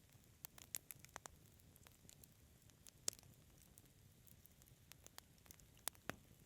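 Wood fire crackling: irregular sharp pops and snaps over a faint low hiss, the loudest pop about three seconds in and two more in quick succession near the end.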